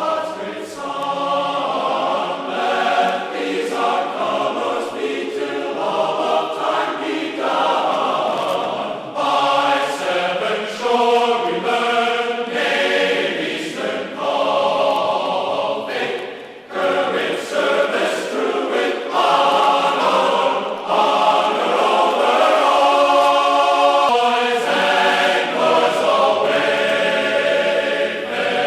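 Background music with choir-like voices holding sustained chords that change every second or two.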